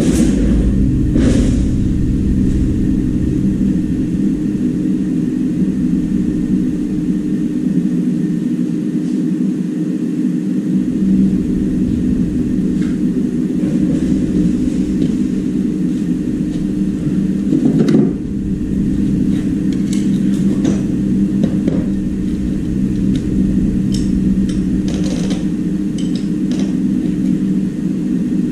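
A steady, loud low machine hum, like a small motor running, with a few short clicks and a knock about two-thirds of the way through.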